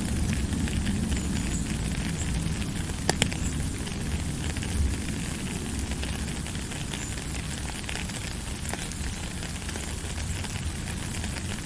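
Steady rain falling: a continuous hiss over a low rumble, with scattered sharp drop ticks and one louder tick about three seconds in.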